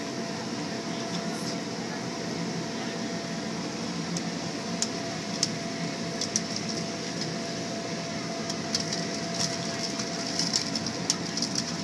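Steady hum of an inflatable bounce house's blower fan under faint background chatter, with light plastic clicks now and then from ball-pit balls knocking together, more often in the second half.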